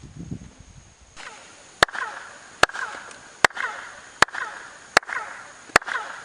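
Six sharp hand claps, about one every 0.8 s starting about two seconds in. Each is answered by a short falling chirp echo off the stepped stairs of a Maya pyramid temple: Tikal's famous "quetzal" echo, which mimics the call of the quetzal bird.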